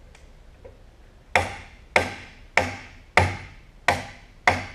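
Six evenly paced hammer blows, about 0.6 s apart, on a steel punch against a stuck pin in the head of a Canedy & Otto drill press. Each strike is sharp and rings briefly, with metal hitting metal.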